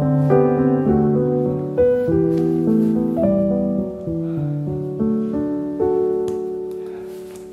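Background piano music: a slow, gentle melody over sustained chords, each note ringing and decaying, dying away near the end.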